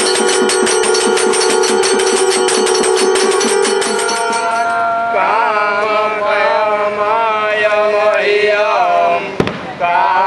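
Conch shells blown in one long held note over a fast, even percussion beat; both stop about four and a half seconds in. Men's voices then chant a devotional hymn together, with a single sharp knock near the end.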